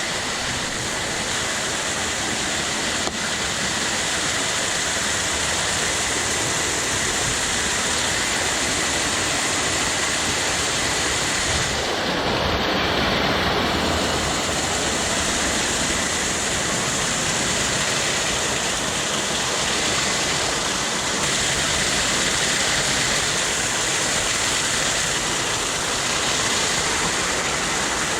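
Steady rushing of a small waterfall, water falling about 20 feet.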